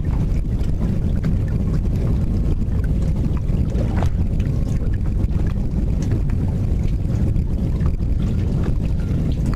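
Wind buffeting the microphone: a loud, steady low rumble that flutters rapidly, with a faint steady hum beneath it.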